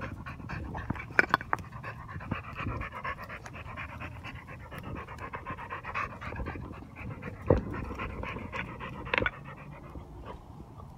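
A dog panting hard, close up, in the heat after a steep, hot climb. A few sharp clicks stand out over the panting.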